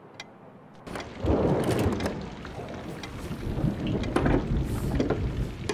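Rain falling steadily, with a rumble of thunder swelling in about a second in.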